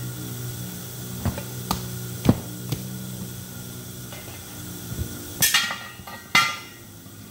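Steel lock ring of a split-rim truck wheel being picked up and set onto the rim: a few sharp knocks first, then two loud, ringing metal clanks near the end.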